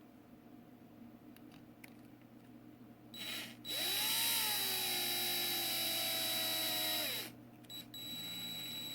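Power drill driving screws into the plastic housing of a hand exerciser: a short blip, then a run of about three and a half seconds with the motor whine rising and then settling, and a second, quieter run near the end.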